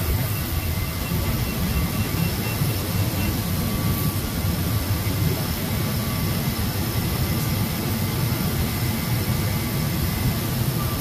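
Steady mechanical drone of running machinery, heaviest in the low end, with faint high whining tones above it.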